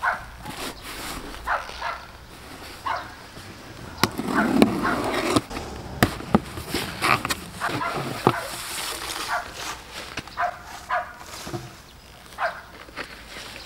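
A dog barks again and again in short calls, while a cardboard box is handled and its flaps are pulled open, making clicks and rustles.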